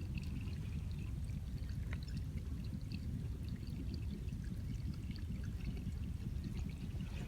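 Water pouring steadily down a small homemade waterfall, with scattered light drips and splashes.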